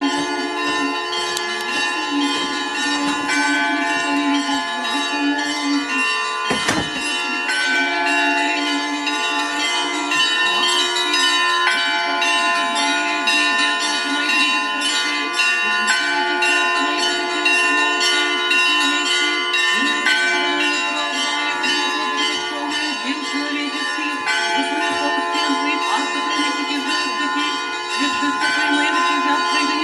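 Orthodox church bells ringing a peal: many bells struck in quick, overlapping strokes, their tones hanging on. A single low thud comes about seven seconds in.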